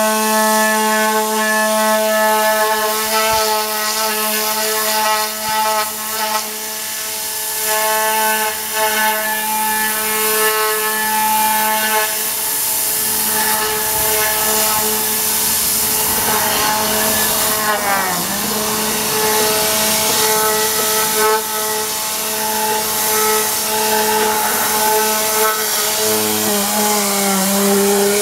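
Compressed-air interior cleaning gun (Tornador type) hissing steadily as it sprays cleaning solution into a car's door panel. Under it runs a steady machine hum that changes pitch around the middle and again near the end.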